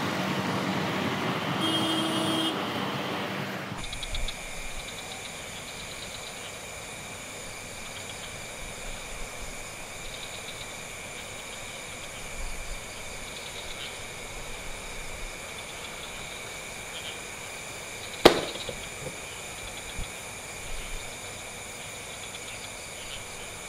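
A motor scooter running for about the first four seconds, then a quiet ambience of steady high-pitched tones. One sharp click about eighteen seconds in is the loudest sound.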